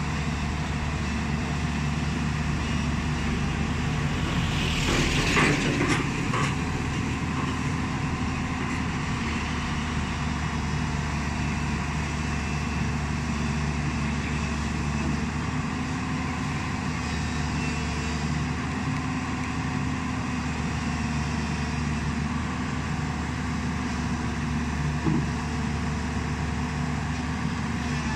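JCB 205 tracked excavator's diesel engine running steadily under load as the machine creeps forward onto a flatbed truck, with a louder burst of metal clatter about five seconds in and a single knock near the end.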